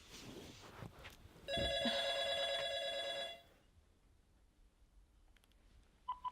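Telephone ringing: one electronic ring with a rapid trill, beginning about a second and a half in and lasting about two seconds, followed near the end by two short beeps.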